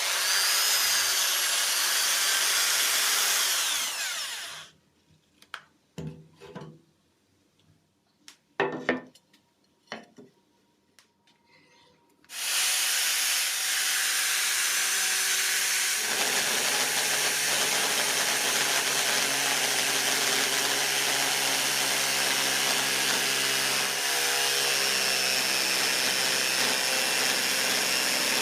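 Electric drill, rigged as a homemade milling machine, runs at speed for about four seconds and stops, followed by a few scattered knocks and clicks as it is handled. It then starts again about twelve seconds in and runs steadily, with a lower hum joining a few seconds later.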